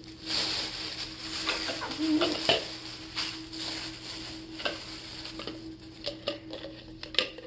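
Plastic shopping bag rustling and crinkling as items are dug out of it by hand, with irregular sharp crackles and a few light taps.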